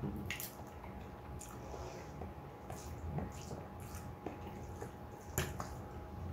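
Close-miked eating sounds: wet chewing and smacking of creamy cheese instant noodles, a scatter of short squelches and clicks at uneven intervals.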